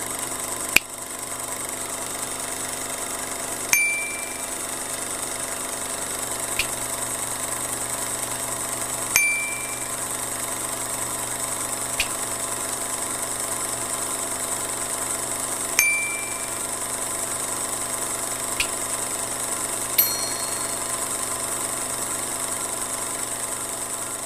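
Short ding-like pop effects, about eight of them a few seconds apart, over a steady hum with a high hiss.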